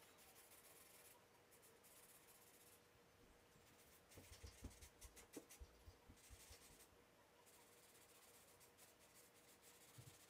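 Faint scratching and rubbing of charcoal across sketchbook paper in repeated shading strokes, each about a second long. A few soft knocks and clicks come about four to six seconds in, over a faint steady hum.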